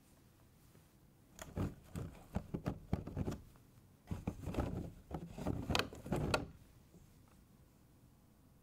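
Close handling sounds of a toy accessory: quick clicks, taps and rustles as gloved hands turn a segmented tail piece over a clear plastic blister tray. They come in two spells of about two seconds each, starting about a second in.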